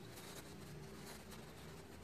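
Faint scratching of a paintbrush's bristles dragged over canvas, in short strokes over a low steady room hum.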